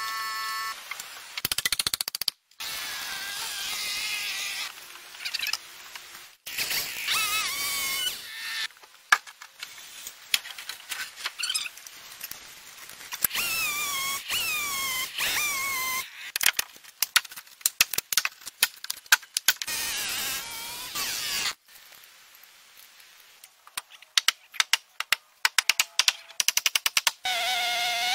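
Irregular sharp knocks and clicks, with high chirping calls that fall in pitch between them. The sound cuts off abruptly several times.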